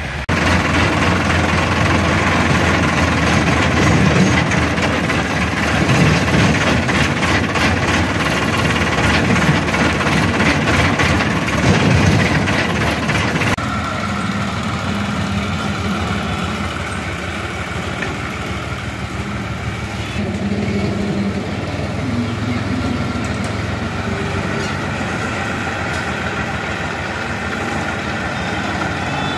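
Tractor diesel engine running loudly with a fast, even beat. About 13 seconds in it cuts to a quieter, steadier engine note from an orange TAFE tractor pulling a trailer loaded with soil.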